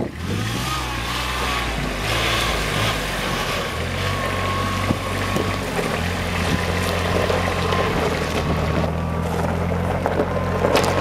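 Kubota RTV utility vehicle's engine running. Its pitch rises and falls for the first few seconds, then holds steady as the vehicle rolls up close.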